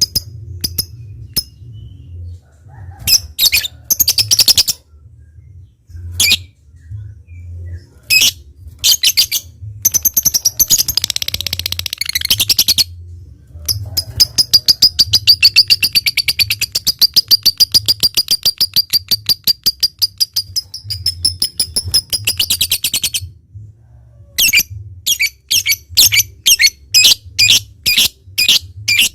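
Lovebird calling: scattered sharp high chirps and a short burst of chatter. Then, from about halfway in, a long run of rapid, even chattering notes lasting about nine seconds, the long 'ngekek' trill of a bird in full song. Quick chirps follow near the end.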